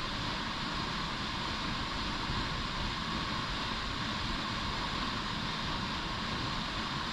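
Steady rushing of a waterfall, an unbroken roar of falling water.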